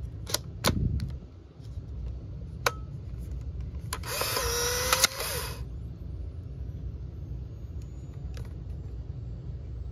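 Polaroid One600 Ultra instant camera: a few sharp clicks as the film pack and film door go in and shut, then, about four seconds in, the camera's film-ejection motor whirs for about a second and a half, pushing out the dark slide from a newly loaded 600 film pack.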